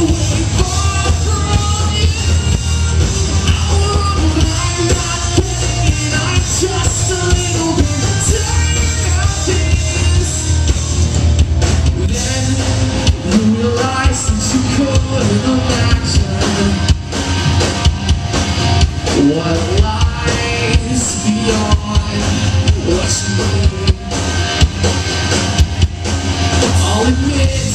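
Live rock band playing a song: a lead singer over electric guitars, bass and drum kit, loud and steady throughout.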